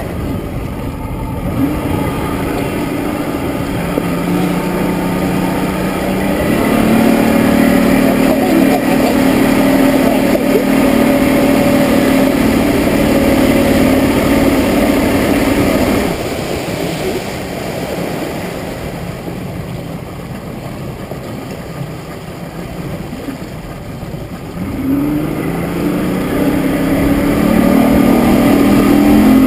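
Outboard motor driving a small boat under way: it speeds up over the first several seconds, eases off about halfway through, then speeds up again near the end, over a steady rush of water.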